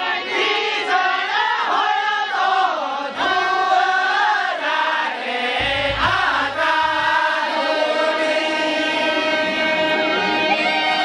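A group of women singing a Santali lagne folk song together, their voices rising and falling in unison over held harmonium chords. There is a brief low thump about six seconds in.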